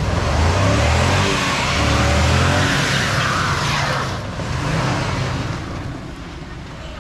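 Dodge Ram 1500 pickup's engine revving hard as the truck pulls forward, with a loud rushing hiss of the rear wheel spinning on dirt and grass. About four seconds in the revs drop and the engine sound fades.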